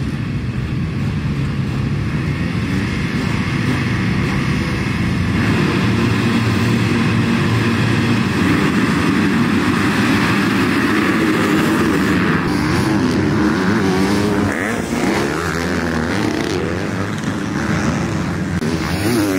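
A field of motocross dirt bikes revving at the starting gate and then accelerating hard off the start together, many engines at full throttle, rising and falling in pitch as they shift.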